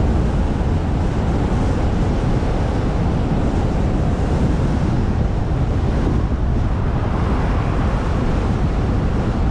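Steady low rumble of wind buffeting the microphone together with road noise from a moving car.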